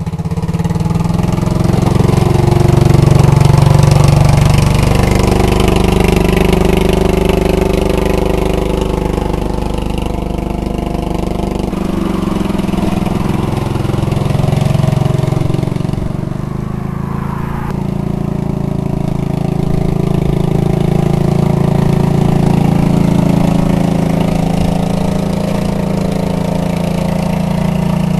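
14.5-horsepower lawn tractor engine running steadily, its loudness rising and falling as its speed changes.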